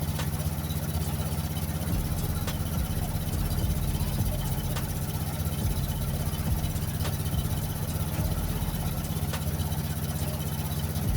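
1972 GMC truck's engine idling steadily.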